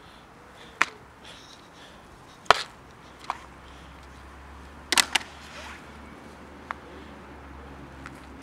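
Sharp plastic clicks and snaps as the clip latches of a snap-lock plastic food container are unclipped and the lid is taken off, then the container is handled. Several single clicks spread over the seconds, with a quick double snap about five seconds in.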